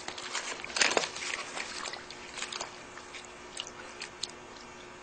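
Wet paper amulets crinkling and squelching as a hand presses them into a metal bowl of water. A louder crackle comes about a second in, then scattered clicks that thin out after about three seconds.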